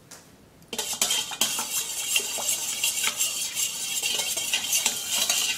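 A metal utensil stirring water in a stainless steel bowl, clinking and scraping against the metal, to dissolve salt and vinegar. It starts just under a second in.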